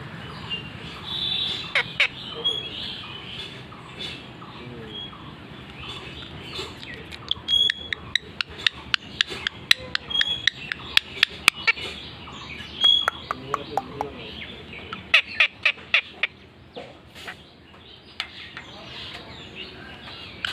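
A pet parrot making short high chirps, mixed with a long run of sharp clicks and snaps that come thickest through the middle.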